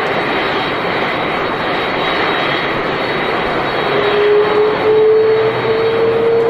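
Airplane engine sound: a steady, loud rushing noise with a whining tone that rises slowly in pitch from about four seconds in.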